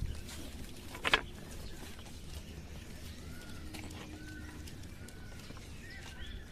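Birds chirping in short arched calls over a low outdoor rumble, with one brief, loud sound about a second in.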